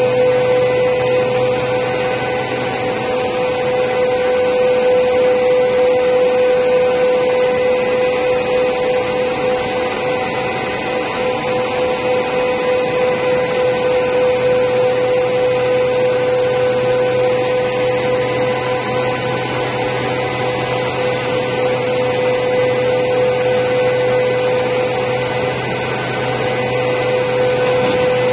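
Four-side planer moulder running and planing wood: a steady high-pitched hum over an even rushing noise, the loudness rising and dipping gently every few seconds.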